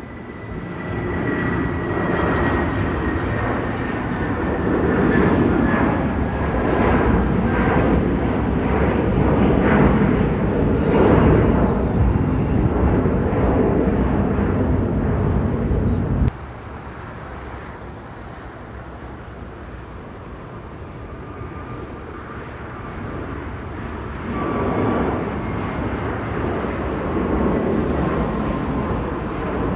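Jet airliner passing, its engines making a loud rushing noise with a high whine that slowly falls in pitch. The sound cuts off abruptly about halfway through, then engine noise builds again near the end.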